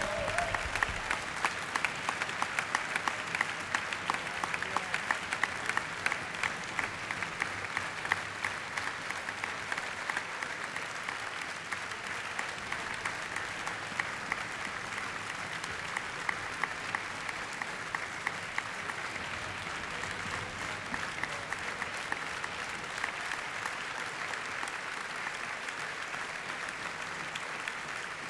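Audience applauding: a dense, even clapping, with sharper individual claps standing out over the first ten seconds or so, then settling into a steadier level.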